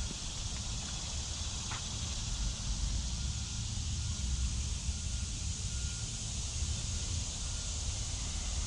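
Summer woodland ambience: a steady low rumble of wind and handling on the microphone, under a faint, even high hum of insects.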